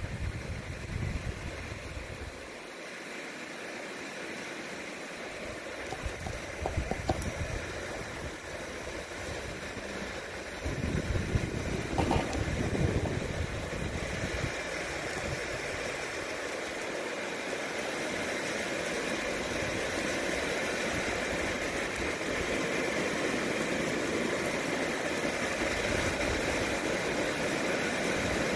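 Rain falling steadily and growing louder as the shower builds into a downpour. A louder low rumble comes about eleven seconds in.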